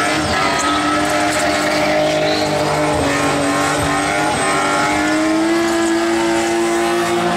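Big-turbo Volvo 740 doing a burnout: the engine is held at high, steady revs while the rear tyres spin in a haze of tyre noise, the pitch creeping up slightly about five seconds in.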